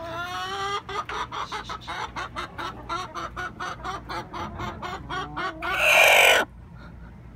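Domestic hen clucking in a fast run of short clucks, then one loud harsh squawk near the end that cuts off suddenly.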